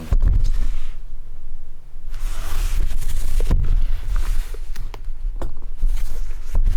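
Handling noise from a large cardboard collector's box being worked open: a low rumble with scattered knocks and a brief rustle of the box rubbing.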